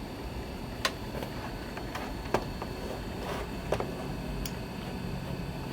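A few sharp, irregularly spaced clicks, about four, the loudest midway, typical of a computer mouse button being clicked while operating a vintage Macintosh, over a steady low hum.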